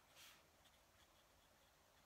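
Fountain pen nib scratching faintly on paper during handwriting: one louder stroke a fraction of a second in, then small, soft scratches.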